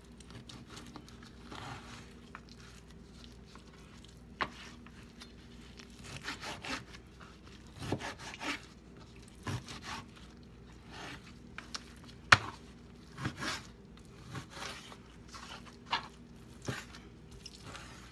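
Chef's knife cutting raw chicken breast on a plastic cutting board: irregular knocks of the blade on the board, with scraping and rubbing between, one sharper knock past the middle.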